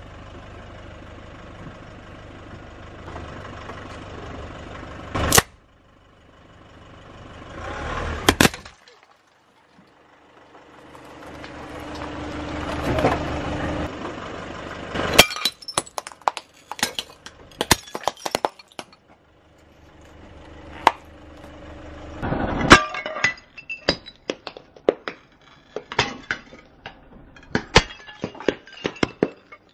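A car tyre rolls slowly over upside-down white ceramic bowls and crushes them. Each breaks with a loud crack, followed by a run of shards clinking and skittering; this happens twice in the second half. Earlier, tyre noise on concrete swells as the wheel rolls up, with a couple of single sharp cracks.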